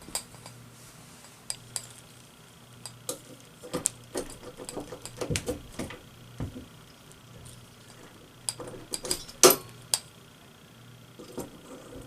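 Scattered clicks, knocks and light clatter of hardware and furniture being handled, irregular throughout, with one sharper, louder knock about nine and a half seconds in.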